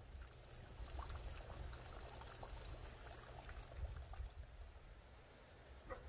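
Faint rush of a mountain valley stream below the house, with scattered light crackles and a low rumble on the microphone.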